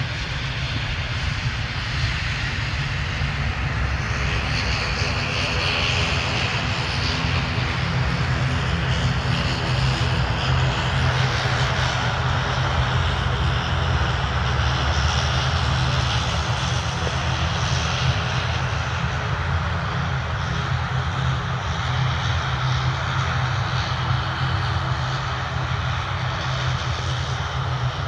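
Aircraft engines running close by: a steady heavy rumble with a hissing whine above it, growing somewhat louder partway through.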